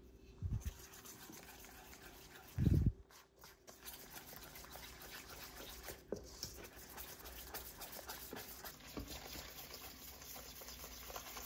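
Wire whisk beating flour and eggs into cake batter in a stainless steel bowl: a rapid run of light clicks and scrapes as the wires hit the metal. Two low thumps come in the first three seconds, the second the loudest.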